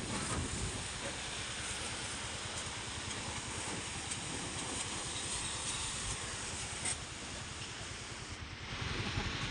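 High-pressure washer lances spraying water against a dump truck's muddy chassis, leaf springs and tyres: a steady hiss of spray.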